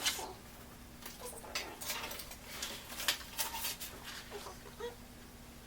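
Scattered light clicks and taps, irregular and a few per second, over a faint steady hum.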